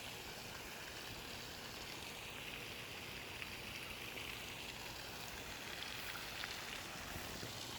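Steady, soft outdoor hiss with a few faint ticks near the end; no single source stands out.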